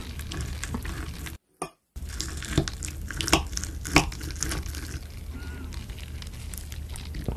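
Knife and fork cutting through a sauced hamburg steak on a plate: wet squishing with a few sharp clinks of cutlery on the plate, the loudest about two and a half, three and a half and four seconds in.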